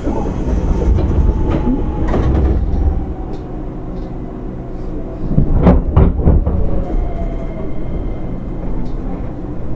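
Electric train running, heard from inside a JR West 205-series motor car with MT64 traction motors and field-added excitation control: steady rumble of wheels on rail, with a motor whine that falls in pitch in the first few seconds as the train slows. About halfway through there is a quick cluster of wheel clacks over rail joints, and near the end a whine rises in pitch as the train speeds up again.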